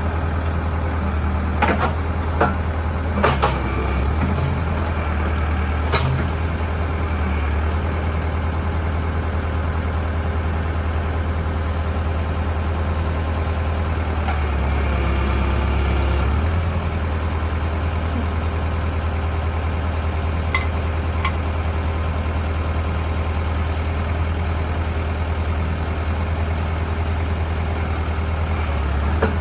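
Backhoe engine running steadily, with a few sharp knocks in the first six seconds and the engine note swelling briefly about halfway through.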